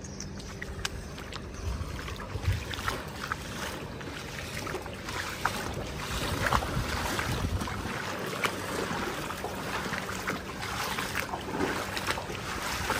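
Footsteps wading through shallow floodwater on a paved street: irregular splashes and sloshing water, with some wind on the microphone.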